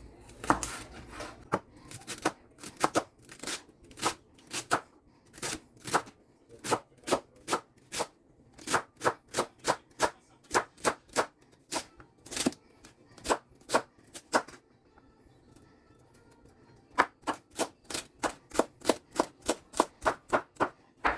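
Kitchen knife chopping celery stalks on a cutting board, cutting them into strips and a fine dice: a steady run of sharp knocks, about three to four a second, with a pause of about two seconds in the middle before the chopping resumes, slightly quicker.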